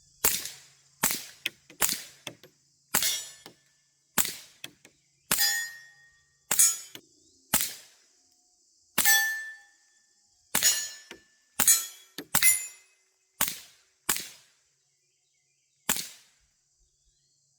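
About fifteen suppressed .22 LR pistol shots from a Taurus TX22 fitted with a Dead Air Mask suppressor, fired roughly once a second at an uneven pace. Several shots are followed by a brief ring from struck steel targets.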